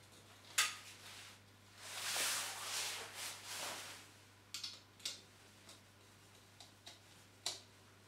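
Small hard clicks and a rustling scrape of plastic and fingers as the PIR sensor's circuit board is handled and pressed back into its plastic wall-mounted base: a sharp click about half a second in, a scrape lasting about two seconds, then a scatter of smaller clicks.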